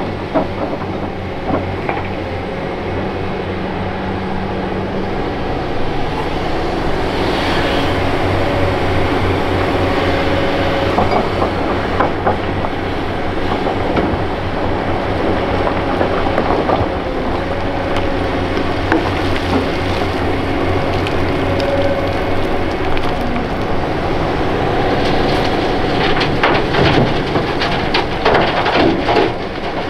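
Hitachi Zaxis 470 LCH excavator working: the diesel engine runs steadily under load with a hydraulic whine that comes and goes. Near the end come a run of knocks and clatter.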